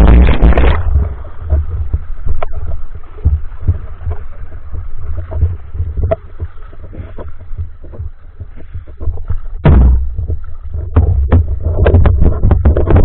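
Water sloshing and gurgling with a heavy low rumble, broken by many sharp clicks and knocks and a louder surge about ten seconds in, typical of a spearfisher moving in the water with the camera.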